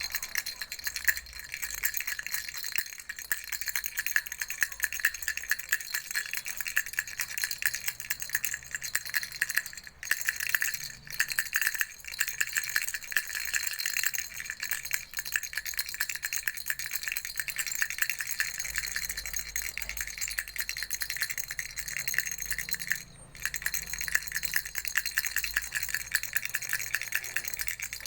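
Baby rattle shaken continuously: a dense, rapid rattling, with brief pauses about ten, eleven and twenty-three seconds in.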